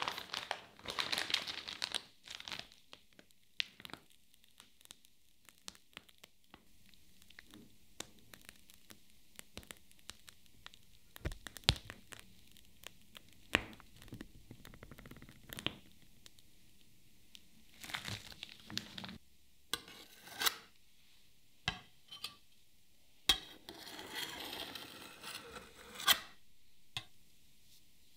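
Cream topping being piped onto a cheesecake from a plastic piping bag: the bag crinkles and tears in bouts near the start and again in the second half, with soft squishes and scattered light clicks and taps.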